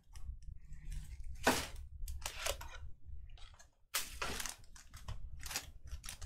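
Trading card packs and cards handled in short bursts of rustling and crinkling, as wrappers are torn and cards are pulled out and sorted.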